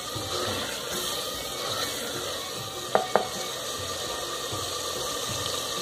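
Chicken and potato curry sizzling steadily in a clay handi as the masala is fried with a little water. A wooden spoon knocks twice in quick succession against the clay pot about three seconds in.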